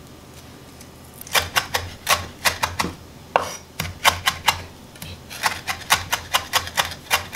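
Chef's knife chopping fresh herbs on a wooden cutting board: rapid sharp knocks of the blade on the board, starting about a second in, with a brief pause midway.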